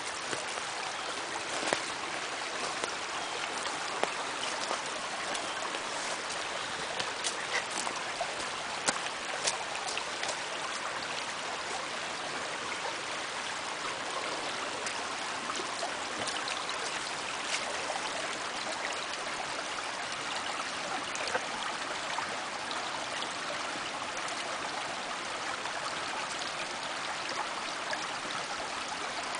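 Small mountain creek flowing and trickling steadily over rocks. A few sharp clicks stand out in the first ten seconds or so.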